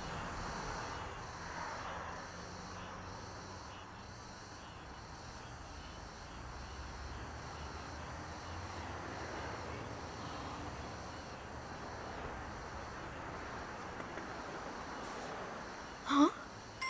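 Steady city street traffic hum with vehicles passing. Near the end a short, loud burst of a mobile phone ringtone starts.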